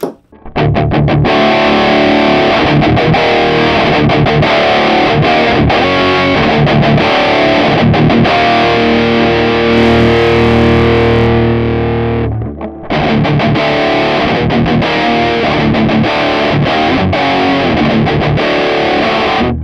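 High-gain distorted electric guitar played loud through a Mooer 008 Cali MK3 micro preamp pedal, modelling a Mesa Boogie Mark III amp. It is riffing in choppy phrases with a chord held for a few seconds around the middle and a short break about two-thirds of the way through.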